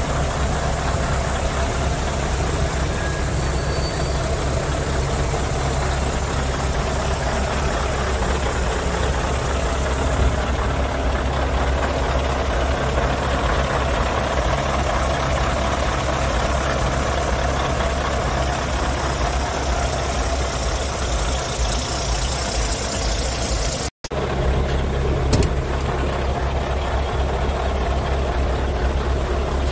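Scania R144 460's 14-litre V8 diesel engine idling steadily, with one brief break in the sound about three-quarters of the way through.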